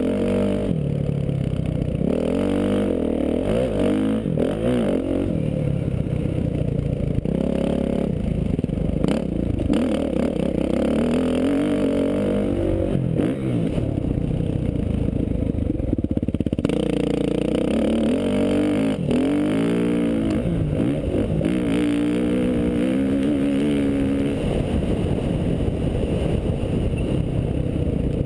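Dirt bike engine heard from a camera on the bike, revving up and falling back over and over as the rider opens and closes the throttle through the track's jumps and turns, with rattling from the ride over rough ground.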